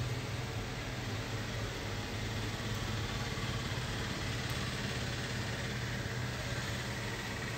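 A steady low hum with an even hiss over it, unbroken throughout.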